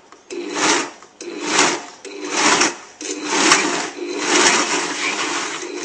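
Blendtec blender pulsing, its motor running in short bursts about once a second, the later bursts longer, as it chops raw prawns, green onion and ginger into a paste.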